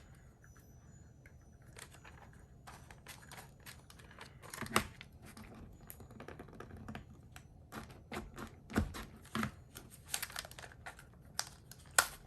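Plastic clicks and paper rustling as a thick stack of cardstock and paper is worked free from a stapleless stapler's jaws, where it has stuck because the stack is too thick. A few sharper clacks stand out, about five, nine and twelve seconds in.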